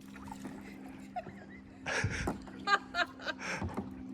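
A canoe paddle splashing in the river water once about halfway through, over a steady low hum.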